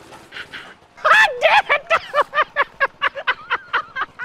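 A person laughing hard in a rapid run of short bursts, starting about a second in.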